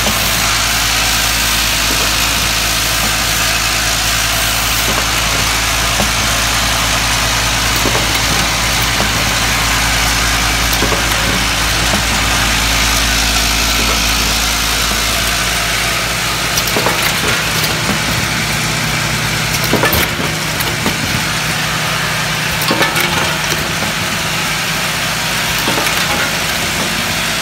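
Automatic cosmetics production-line machinery running with a steady mechanical hum and hiss. A low drone drops out a little past halfway, and a few sharp clicks and knocks follow.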